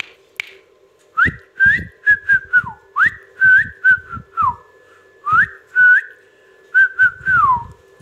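A whistled tune of clear, pure notes, starting about a second in: quick upward slides, short held notes and a few notes that glide down, grouped in three short phrases.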